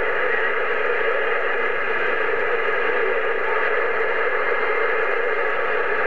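Steady, even static hiss from a President HR2510 radio's speaker, its receiver open on 27.025 MHz with no one talking on the channel.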